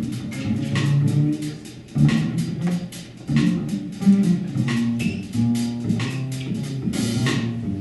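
Upright double bass played pizzicato in a jazz line, a steady run of separate low plucked notes.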